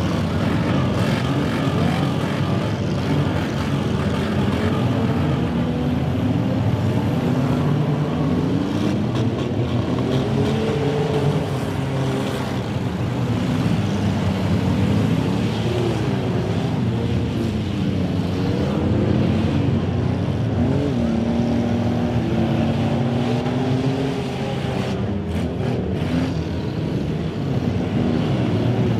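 Many demolition derby cars' engines revving at once, their pitches overlapping and rising and falling as the drivers accelerate and back off, with a few sharp knocks of cars colliding.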